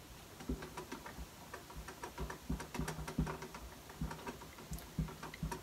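Marker pen tapping and scratching on a whiteboard as words are written: a quick, irregular run of light taps, a few each second.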